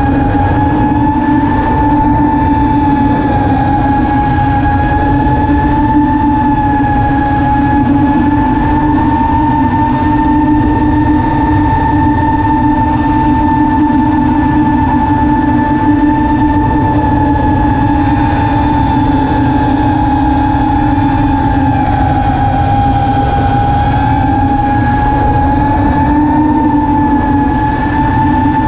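Armattan Rooster 5-inch FPV racing quad's T-motor F40 III 2400kv motors and Dalprop T5045C tri-blade props humming steadily, heard from the camera on the quad, the pitch drifting slightly up and down with throttle, over a low rumble of wind on the microphone.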